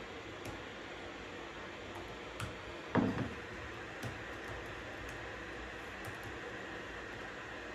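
Steady white noise hiss with a few scattered soft clicks, and one louder knock about three seconds in.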